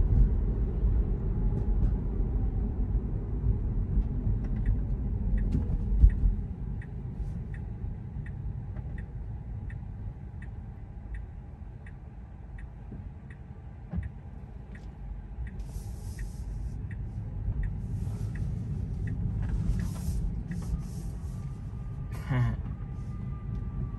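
Low road rumble inside a Tesla's cabin while it drives, with a single knock about six seconds in. From about four seconds in, the turn signal ticks evenly at about two ticks a second for roughly ten seconds: the blinker that the car did not cancel after its turn.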